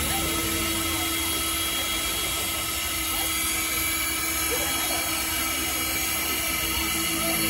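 Strasburg Rail Road No. 89, a 2-6-0 steam locomotive, standing with steam up: a steady hiss with a steady whine running through it, without exhaust beats.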